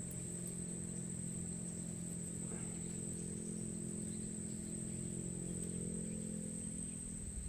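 Insects chirring with one steady high-pitched tone, over a low steady hum that fades out near the end.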